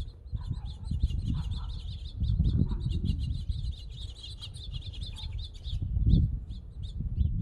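A flock of small birds chirping, many short rapid notes overlapping and thickest in the middle, over an uneven low rumble that swells and fades.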